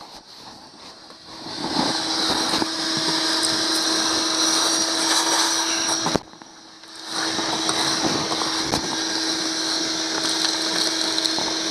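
Shop vacuum running steadily with a constant hum and high whine as its hose sucks dirt off a boat's bare plywood deck. It comes up about a second and a half in, cuts out briefly about six seconds in, then runs again.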